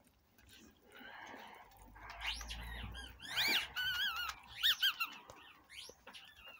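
Dog's squeaky ball toy squeaking as the dog chews it: a string of short, high squeaks bunched in the middle, over soft rustling.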